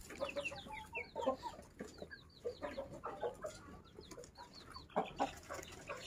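Chickens clucking, with many short calls overlapping and scattered and small high chirps among the lower clucks.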